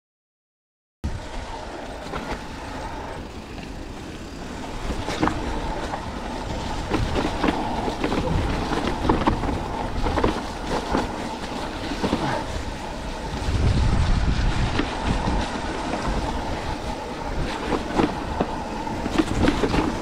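Mountain bike riding fast down a dirt trail: tyre noise on dirt with a steady clatter of small knocks from the bike over bumps and roots, starting after a second of silence. The low rumble swells for a couple of seconds about two-thirds of the way through.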